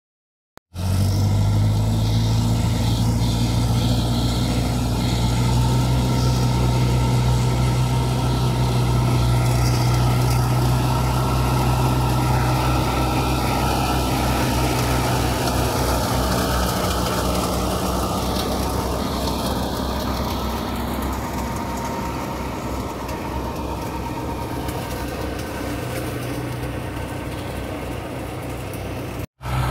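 Universal 640V tractor's diesel engine running steadily with a flail mower. It starts abruptly under a second in and breaks off briefly just before the end.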